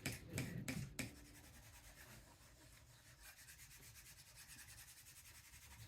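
Faint, steady rubbing of wax paper pressed face down on a wooden printmaking block, transferring the drawn image onto the block. There are a couple of light taps in the first second.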